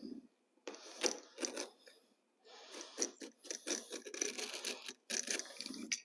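Carpet being handled and sliced with a carpet knife: quiet, irregular scratchy rasps and rustles of the woven carpet backing, in several bouts.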